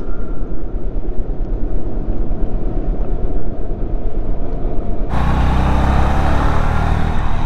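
Honda CB350's single-cylinder engine running under way, heard through wind and road rumble on the rider's microphone. The sound is muffled for the first five seconds, then opens up, and the engine's low beat comes through clearly.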